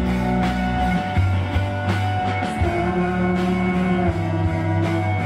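A rock band playing live: electric bass holding low notes under drums and electric guitar, steady and full, with no break.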